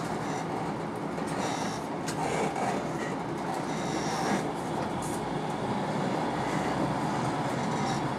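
Passenger train running along the line, heard from inside the carriage: a steady rumble with a few faint clicks.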